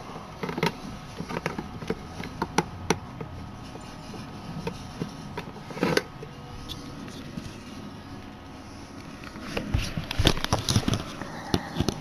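Light clicks, taps and rattles of a mini fridge's removable rack being handled, with a louder knock about halfway through and a quick run of sharper knocks near the end, over a faint steady hum.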